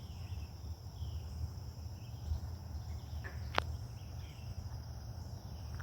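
Steady high-pitched insect chorus over a low rumble, with a few faint short chirps and one sharp click about three and a half seconds in.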